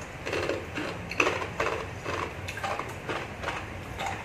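Eating and drinking sounds: irregular small clicks and knocks of a metal cup and utensils, mixed with mouth noises, after very spicy instant noodles.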